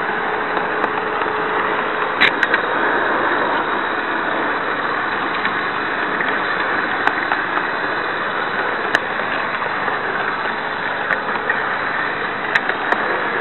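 Märklin model train running on its track, heard from aboard one of its coaches: a steady rushing hiss, with a few short sharp clicks scattered through.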